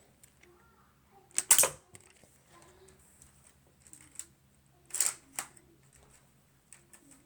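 Lego rubber-band rifle being fired: two sharp plastic snaps about three and a half seconds apart. Each is followed closely by a smaller click, with light plastic clicks of handling in between.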